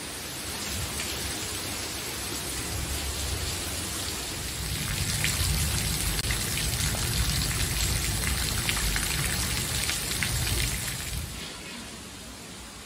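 Heavy rain pouring down onto a paved patio, pebbles and artificial grass: a dense, steady hiss of falling water with scattered sharp drop splashes, growing louder after a few seconds. Near the end it falls away to a softer hiss.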